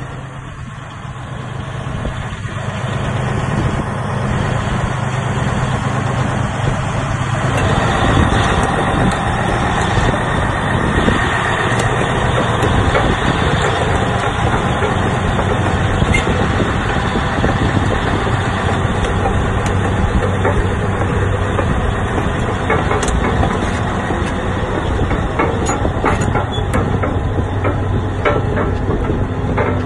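Caterpillar D10N crawler dozer's 3412 V12 diesel engine running, getting louder over the first few seconds and again about eight seconds in. In the second half, scattered sharp clanks come through as the dozer moves on its steel tracks.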